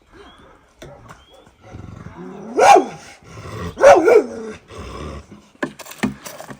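An animal calling loudly twice, about a second and a half apart, each call rising and falling in pitch, followed by a few sharp clicks near the end.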